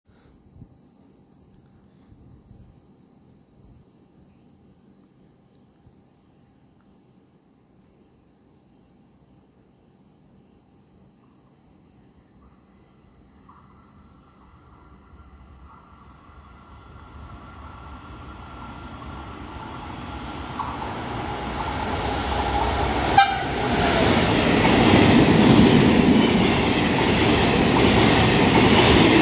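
Crickets trilling in a steady pulsing chirp, then an Italian regional express train approaching at speed. Its noise rises over about ten seconds, with a faint steady tone as it nears, and becomes a loud rush of wheels and rumble as it runs through the station without stopping. A single sharp clack comes a few seconds before the train is fully level.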